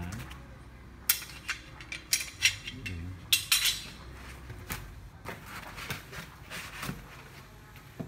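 Metal rack-mount brackets clinking and knocking against each other as they are lifted out of a cardboard box, a quick run of sharp clinks loudest about three seconds in. Softer scraping and rustling of packing foam against the cardboard follows.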